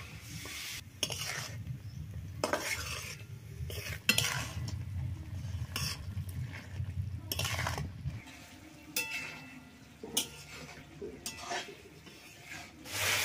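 A long metal spoon scraping and stirring chicken curry around a wide aluminium pan on a wood-fired clay stove, in irregular strokes, with the curry sizzling as it fries.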